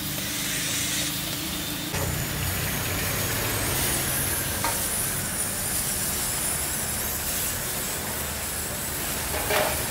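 Meatballs sizzling on a charcoal grill: a steady hiss, with a light click about two seconds in.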